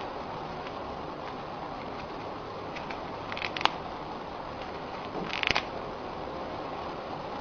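A hamster biting and tugging at a thin dry cracker: a few short crackly crunches about three and a half seconds in, and a brief cluster of them around five and a half seconds, over a steady hiss.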